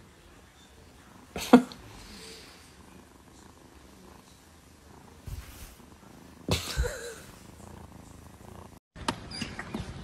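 Cat purring close to the microphone, broken by a few brief louder sounds, the loudest about one and a half seconds in.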